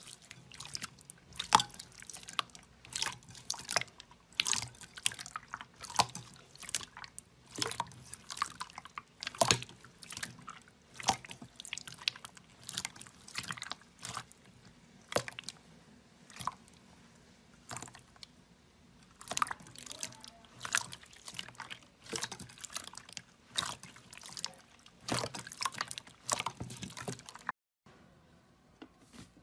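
Clear slime being pressed and stretched by hand in a glass bowl, giving irregular wet clicks and pops, a few a second, as air pockets in the slime burst.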